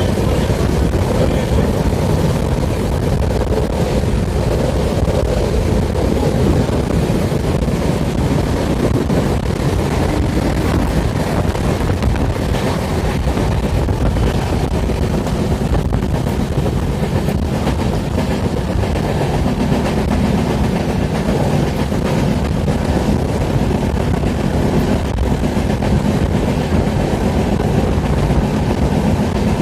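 Express passenger train running at speed through a station without stopping: a steady, loud rumble of wheels and rail noise that continues without a break.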